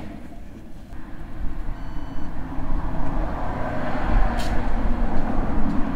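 A motor vehicle's engine rumbling and growing gradually louder, with a single short electronic beep about two seconds in.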